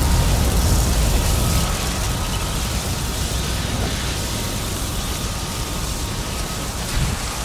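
Flamethrower-lit fire burning: a steady rushing of flames with a deep rumble that slowly dies down, swelling briefly near the end.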